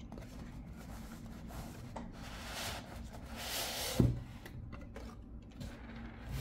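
Rigid cardboard box being opened by hand: the inner box slides out of its close-fitting sleeve with a rubbing hiss that builds over a second or two. It ends in a single sharp knock about four seconds in, as a part is set down on the wooden tabletop.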